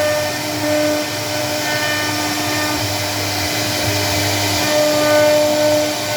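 CNC router spindle running steadily: a constant whine over a hiss, its higher overtones fading in and out.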